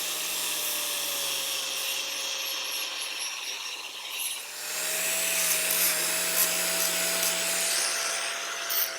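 Electric angle grinder running against steel with a steady abrasive hiss over the motor's hum; the motor speeds up slightly about halfway through as the load eases.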